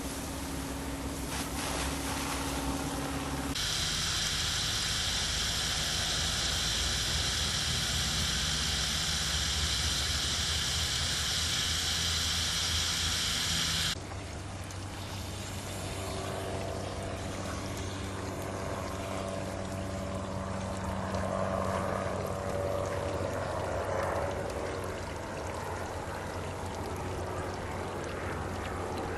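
Water from a hose spray nozzle hissing over expanded clay gravel in a grow bed, cutting off abruptly about halfway through. After that, quieter water pours and trickles out of the grow bed's drain pipe, with a low steady hum underneath.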